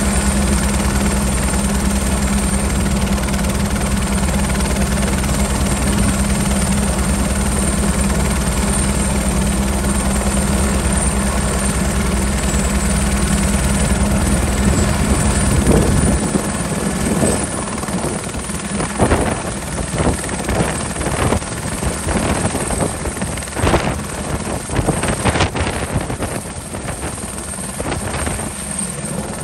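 Airbus AS350 Écureuil-type helicopter running on the pad, its turbine and main rotor making a steady drone. About halfway through the sound changes and turns gusty and uneven, in the run-up to lift-off.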